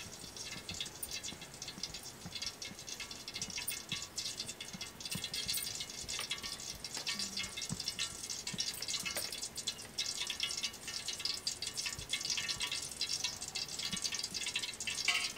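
Cooking oil heating in a pan on the stove, crackling and popping with a dense, steady run of fine clicks as it comes up to frying heat.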